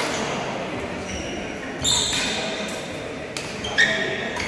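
Badminton rally in a large sports hall: sharp racket hits on the shuttlecock and shoes squeaking on the court floor, the loudest about two seconds in and again near the end, over echoing background chatter.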